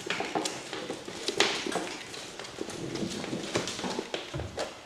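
West Highland White Terrier puppies' claws clicking and scrabbling on a laminate floor as they play, with irregular taps and knocks as they push a plastic doll about.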